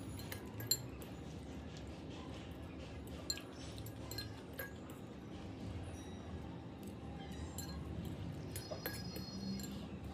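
Metal fork clinking and scraping against a glass bowl as instant noodles are scooped up and eaten. There are scattered small clicks, the sharpest about a second in, over a low steady hum.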